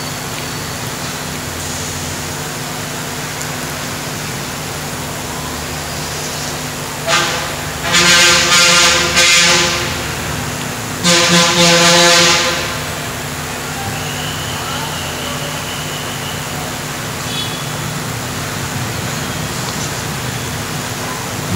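A vehicle horn honks three times over a steady hum: a short toot about seven seconds in, then two long blasts of a second or two each, a moment apart.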